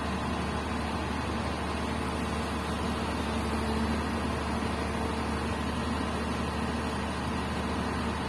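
Komatsu PC200 hydraulic excavator's diesel engine running with a steady drone.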